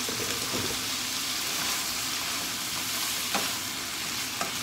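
Sliced fuki stalks sizzling in a frying pan while a wooden spoon stirs them, with a few sharp knocks of the spoon against the pan, the loudest about three and a half seconds in.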